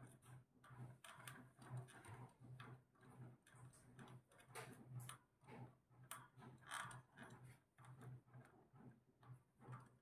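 Faint, irregular clicking of an Indian ringneck parakeet's beak nibbling a wooden perch, over a low hum that swells and fades about twice a second.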